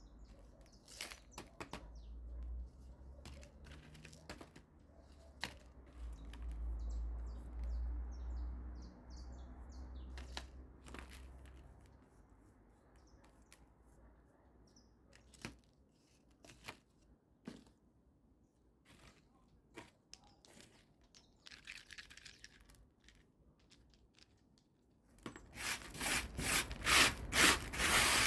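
Handling sounds of repotting succulents: scattered light clicks and rustles with a few faint bird chirps, then, near the end, a loud run of quick rhythmic scraping or rubbing strokes.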